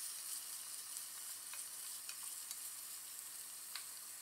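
Sliced onions sizzling faintly in hot oil in a stainless-steel pressure cooker while a plastic spatula stirs them, with a few light clicks through the steady hiss.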